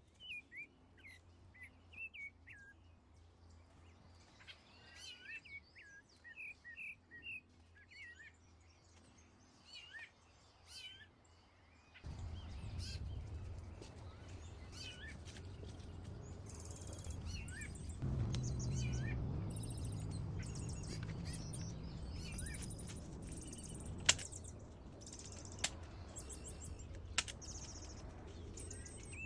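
Wild birds chirping with short, quick calls, joined about twelve seconds in by a steady low rumble that grows louder a few seconds later. A pulsing high buzz and a few sharp clicks come in the second half.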